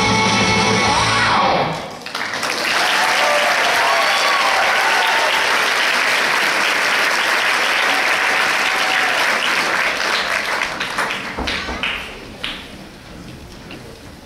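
Recital music stops about two seconds in and an audience applauds, with a few voices calling out; the clapping dies away over the last few seconds.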